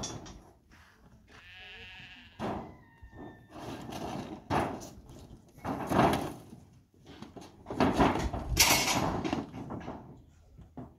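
Livestock bleating: one wavering call about two seconds in, followed by louder bursts of rustling, scuffling noise.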